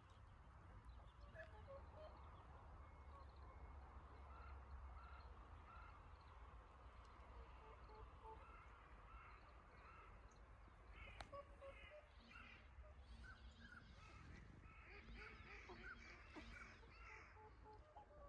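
Faint, scattered calls of ducks and other waterfowl, becoming busier in the second half. Beneath them runs a steady low rumble, and a single sharp click comes about eleven seconds in.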